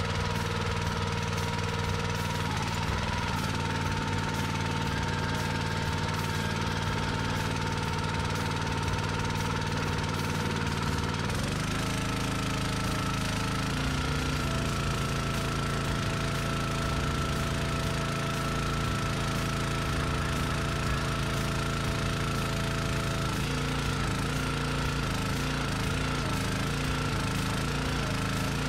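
Kohler 6.5 single-cylinder engine of a 27-ton log splitter running steadily while the hydraulic ram is cycled to bleed air out of the fresh hydraulic fluid. The engine note changes about eleven seconds in and again near the end.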